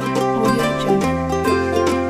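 Background music: a light tune on plucked strings over a steady beat.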